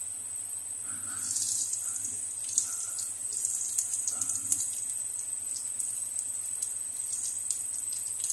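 Cumin seeds and green cardamom sizzling in hot oil in a kadhai, a steady hiss with scattered crackles and pops; the sizzle swells about a second in.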